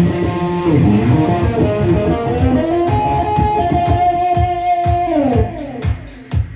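Band playing, led by electric guitar: sustained chords and notes ring over a steady beat of short hits, and the held notes slide down in pitch about five seconds in.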